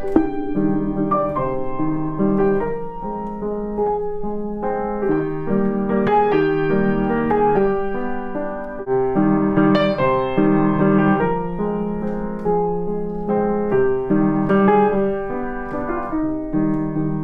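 Background piano music: a gentle melody over steady chords.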